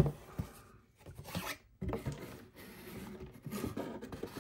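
Handling of a cardboard retail box and a shrink-wrapped plastic lunch box on a desk: a sharp knock at the very start, then a few seconds of rubbing and scraping as the packaging is slid about.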